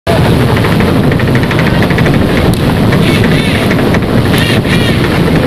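Amphibious duck boat under way on the water, its engine running steadily under heavy wind noise on the microphone.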